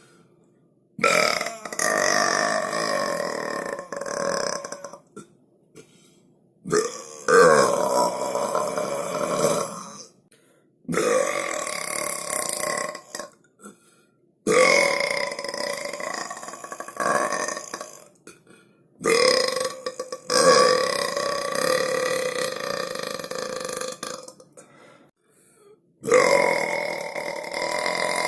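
A series of long, drawn-out human belches, about six of them one after another, each lasting several seconds with a steady pitched tone and separated by brief gaps.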